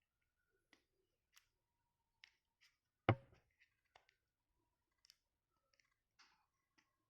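Handling sounds of a smartphone and its packaging: scattered faint clicks and taps, with one sharp, louder knock about three seconds in.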